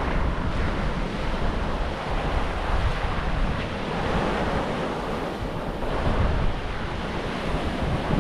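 Wind buffeting the microphone over the wash of the sea: a steady, noisy rumble that swells and eases without any distinct events.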